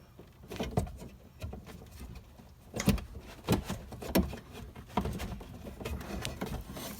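Irregular knocks and clicks from the window glass and the regulator's clip inside a car door as the glass's pin is worked down into the metal C-clip, about five or six sharp knocks spread over several seconds.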